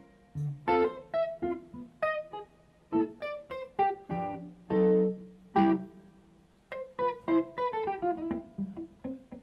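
Hollow-body electric guitar played clean, a solo line of single plucked notes and short chords with brief pauses, and a run of notes stepping down in pitch near the end.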